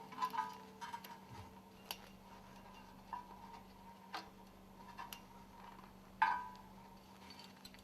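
Light, irregular metallic clicks and clinks of stuffing box scraper ring segments and their garter spring being handled on a work table while the spring ends are hooked together, the loudest clink about six seconds in. A faint steady hum lies underneath.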